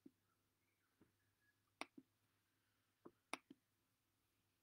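A few faint, sharp computer clicks over a quiet room: a pair a little under two seconds in, then three in quick succession about a second later.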